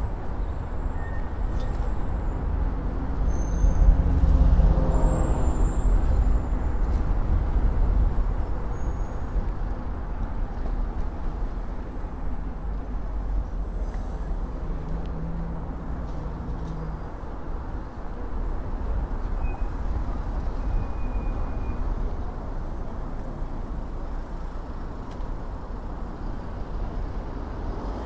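Street traffic heard on the move, with steady wind rumble on the microphone. A motor vehicle's engine passes close about four to six seconds in, the loudest sound in the stretch.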